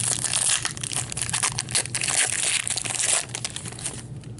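Foil wrapper of a hockey card pack crinkling and crackling as it is torn open and crumpled by hand; the crackling stops about three seconds in.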